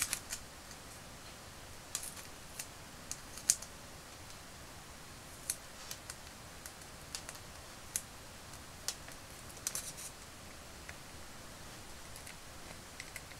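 Faint, scattered ticks and crackles of black vinyl insulation tape being wrapped around an LED's thin wires and pressed down by fingers, then the taped LED being handled against a small plastic figure head, with a little cluster of clicks near the end.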